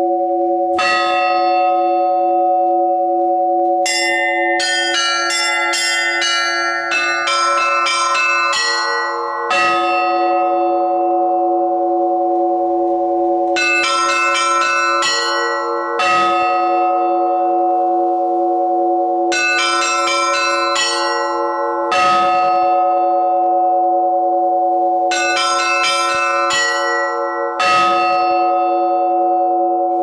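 Russian Orthodox church bells rung by hand from ropes tied to their clappers, in a repeating peal. A heavy stroke comes every six seconds or so, each followed by a quick run of strokes on the smaller bells, and all the bells keep ringing on over one another.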